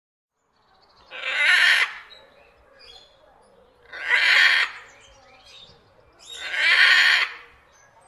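Parrot squawking three times, harsh loud calls each under a second long, about two and a half seconds apart.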